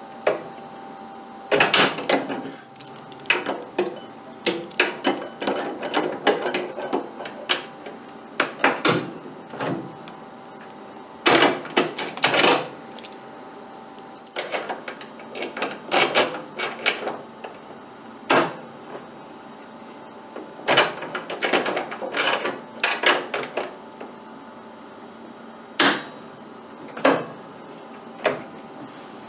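Locking pliers (vise grips) clicking, clanking and scraping on the stub of a broken-off steel bolt as it is worked to unscrew it from a Craftsman snowblower's handle mount. Irregular metal clicks and short rattles come with pauses between them.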